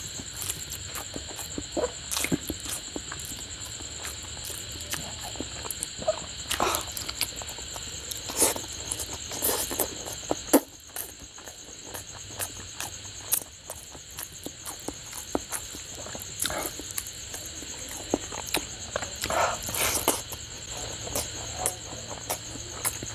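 Close-up eating sounds: wet squishing of curry-soaked turmeric rice squeezed by hand, with chewing and lip smacks coming as irregular sharp clicks and squelches. A steady high-pitched shrill tone runs behind them.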